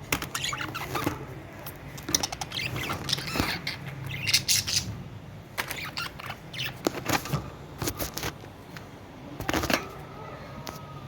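Budgerigars chirping and chattering in short, sharp bursts, with a steady low hum underneath.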